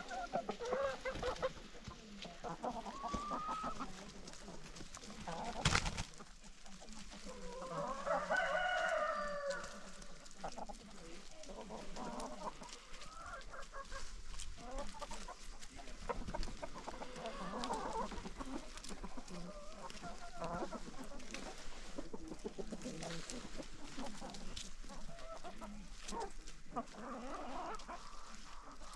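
Free-range chickens clucking continually, with a rooster crowing once, a long call about eight seconds in. A single sharp knock about six seconds in.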